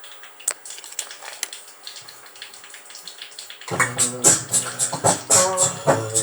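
A few scattered light clicks and ticks, then about three and a half seconds in a music track starts abruptly: a bass line under crisp, rhythmic percussive hits.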